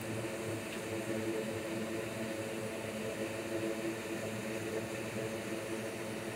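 Steady whir of a fan running, with a low droning hum of several even tones underneath.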